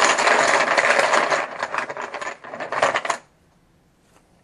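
Poker-style team chips clattering and clicking against each other as they are stirred in a bag to draw one, stopping abruptly about three seconds in.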